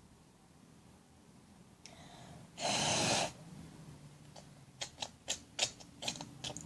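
A short, loud puff of breath, then about six small sharp clicks and pops from the slime being squeezed and stretched in the hand.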